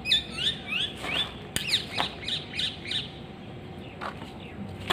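Birds calling: a quick run of short, sweeping chirps, busiest in the first three seconds and thinning out after, over a faint steady hum.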